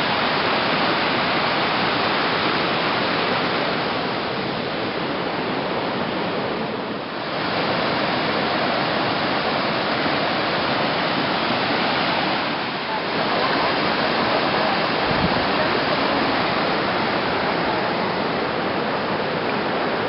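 Water rushing steadily over small cascades between the lakes, a dense even hiss that dips briefly twice.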